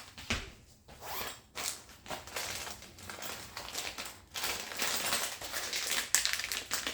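Packaging being handled and pulled open while unboxing a chainsaw's parts: a run of short rasping and rustling strokes, longer and louder in the second half.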